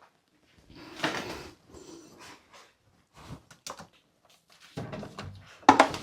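Irregular handling noises: knocks, clicks and rustles from parts being handled during a bath-heater repair, with the loudest knock near the end.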